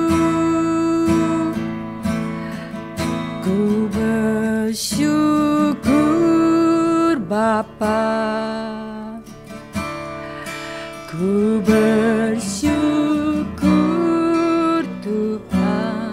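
Strummed acoustic guitar accompanying singing of a slow Indonesian worship song, with long held sung notes, some wavering in vibrato.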